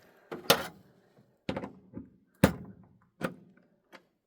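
A loosened 3D-printed plastic jig being knocked along its sled on a mini chop saw to shift it by one printed-layer ridge: about six sharp, uneven thunks, the loudest about half a second and two and a half seconds in.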